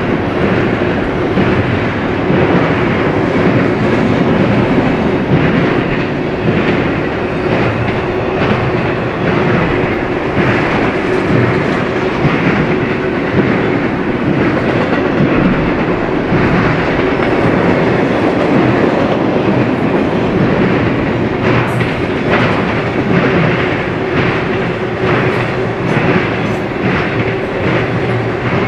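BNSF freight train rolling past: a continuous rumble of the cars, with wheels clacking irregularly over the rail joints and a faint steady hum underneath.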